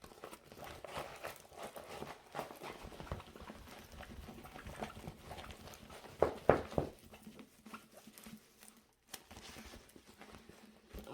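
A large diamond-painting canvas being flipped over and rolled the other way by hand: irregular rustling and handling knocks, with a brief cluster of louder knocks about six and a half seconds in.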